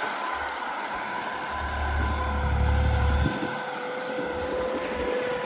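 New Holland 3032 Plus tractor's three-cylinder diesel engine running under load as it pulls a nine-tine cultivator through wet soil, with a steady whine over the engine note.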